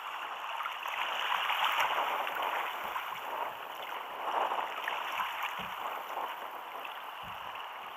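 Choppy seawater splashing and lapping against a fishing kayak's hull, a steady hiss of water that swells twice.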